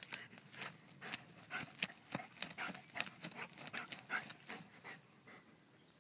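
Dog digging at a mole hole with its nose in the earth: a quick, irregular run of sniffs and scrapes of paws in soil, several a second, stopping about five seconds in.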